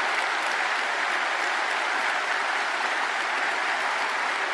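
Audience applauding, a dense and steady clapping that holds at an even level throughout.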